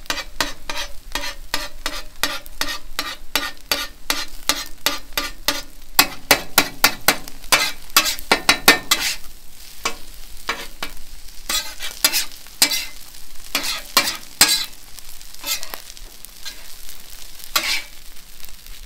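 Metal spatula chopping and scraping eggs in butter on a hot flat-top griddle: quick sharp clacks of the blade on the steel plate over the sizzle of the frying eggs. The strokes come about three or four a second for the first half, then more spaced out.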